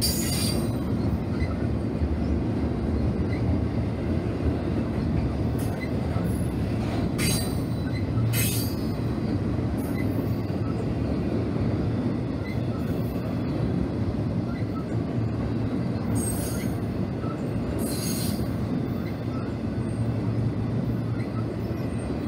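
BNSF double-stack intermodal train's cars rolling past, a steady low rumble of steel wheels on rail. Short high squeals from the wheels cut in about five times.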